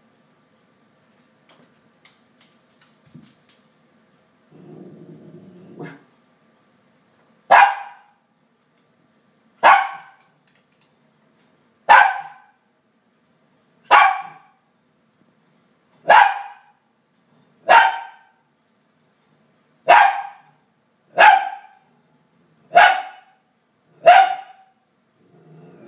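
Small dog barking: ten single, sharp barks, about one every two seconds. These are demand barks at treats kept out of its reach.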